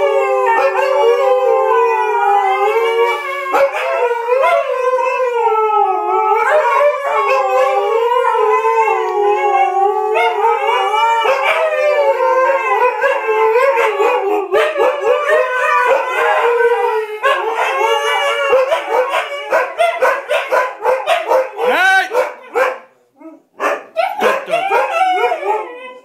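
A husky howling in long, wavering notes, with more than one voice howling together at different pitches. In the last third the howls break into shorter, choppier calls, with a brief pause near the end.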